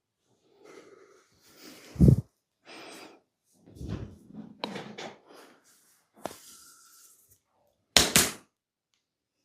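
Hands working over a body in a massage: irregular slaps and thumps with rubbing in between. There is a heavy thump about two seconds in, a run of softer hits, a sharp click, and a loud double slap near the end.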